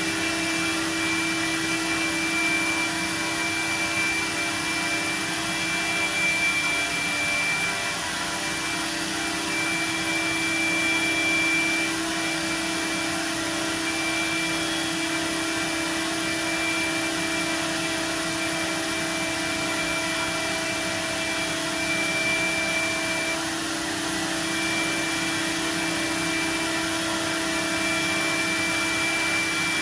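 C.R. Onsrud 122C16C CNC router running: a steady whirring hiss under a low hum, with a high whine that drops out and comes back several times as the machine works.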